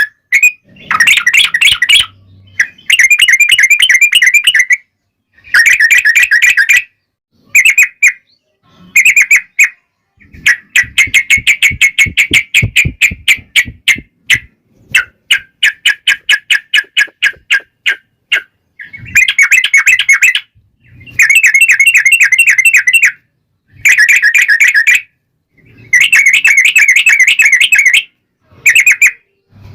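Yellow-vented bulbul song: loud, fast, chattering trilled phrases one to three seconds long, repeated with short breaks, including a long rapid trill in the middle.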